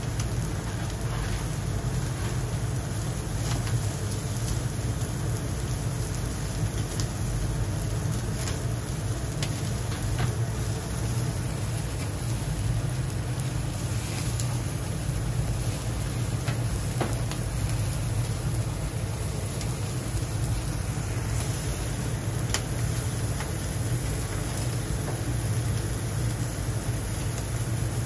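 Meat skewers sizzling on a commercial gas grill fired with charcoal, with scattered small pops and crackles of fat, over a steady low rumble.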